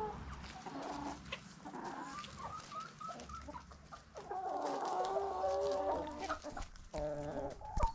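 Chickens clucking: a quick run of short clucks, then a longer drawn-out call about four seconds in and another brief one near the end.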